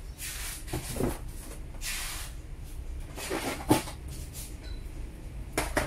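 Clear plastic wrapping crinkling and light knocks as the boxed tool and its power cord are handled, in several short bursts.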